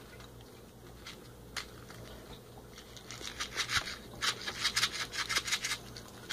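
Candy packaging being handled: a fast run of scratchy rustles and rattles, several a second, starting about three seconds in.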